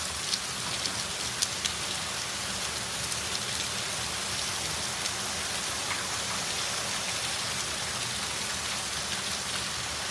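Hail and rain falling steadily on a concrete patio and its surroundings: a dense hiss with sharp ticks of hailstones striking, thickest in the first couple of seconds.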